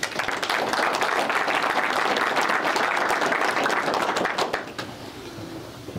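Audience applauding, dense clapping that dies away about four and a half seconds in.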